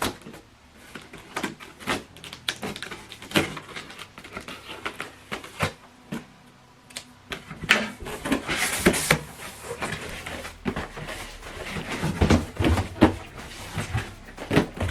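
Hands handling and opening a cardboard parcel: scattered knocks and clicks, with a stretch of rustling or tearing packaging about eight seconds in.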